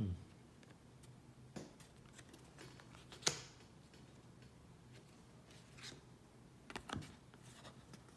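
Tarot cards being handled and turned over: a few faint, soft clicks and rustles of card stock a second or two apart, the sharpest about three seconds in.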